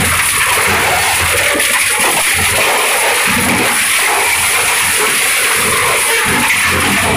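Twin-shaft metal shredder running, its blades gripping and tearing scrap steel roofing sheet: a loud, steady rush of grinding metal noise, with a low machine hum that comes and goes.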